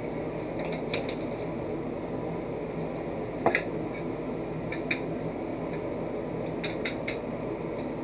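Light clicks and clinks of a metal-and-plastic shower head and a Kool-Aid packet being handled, the sharpest clink about halfway through, over a steady fan-like whir.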